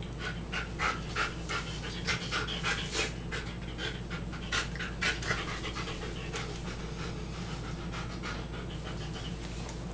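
A large shaggy dog panting in short, irregular breaths, louder in the first half and fainter toward the end.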